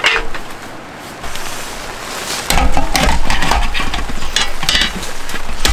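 Clicks and clatter of a small cassette-type portable gas stove being handled and set up on a table, with its gas canister compartment open. A sharp clatter comes at the start, and the louder run of clicks and knocks begins about two and a half seconds in. Underneath is a steady hiss of rain on the tent.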